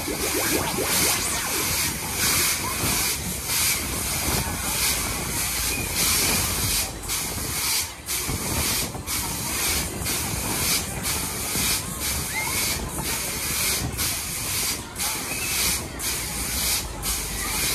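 Tagada fairground ride running, its pneumatic rams hissing out compressed air in rapid repeated bursts as they kick the spinning bowl up and down.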